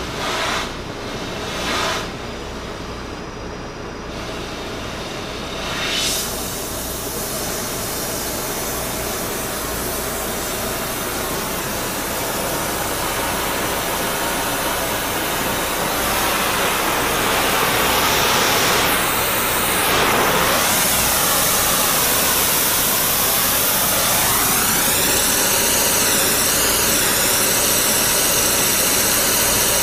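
Spray-welding torch flame hissing steadily while preheating a spindle turning in a lathe. A few brief surges in the hiss come in the first six seconds, and it grows louder from about the middle on as the flame plays on the work.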